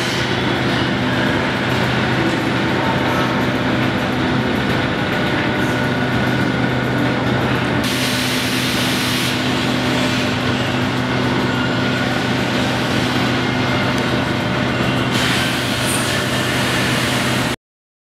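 Chain-driven live roller conveyor with pop-up chain transfers running steadily with a low mechanical hum, carrying a pallet load of steel plate. Two short bursts of hiss come in, about eight and fifteen seconds in, and the sound cuts off suddenly near the end.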